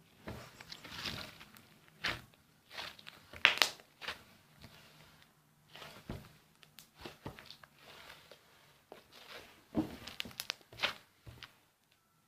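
Slime being stretched, folded and pressed by hand, making irregular squishes, crackles and small pops; the loudest comes about three and a half seconds in.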